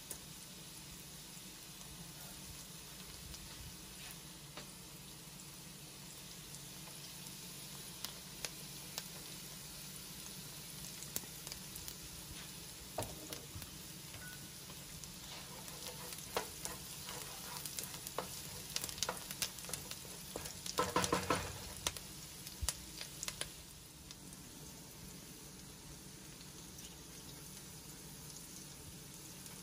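Diced onion and garlic sizzling in butter in a nonstick pan: a steady frying hiss. From about a quarter of the way in, a wooden spoon stirs through the food with clicks and scrapes against the pan. These are busiest and loudest a little past the middle.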